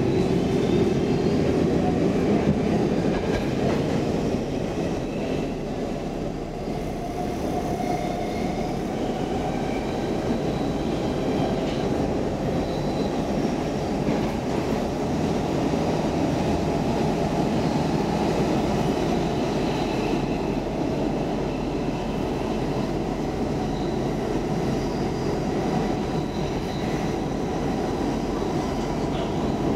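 Stockholm Metro C14 train running, heard from inside the carriage: a steady rumble of wheels on rail. A rising whine in the first couple of seconds comes as the train pulls away from the platform into the tunnel.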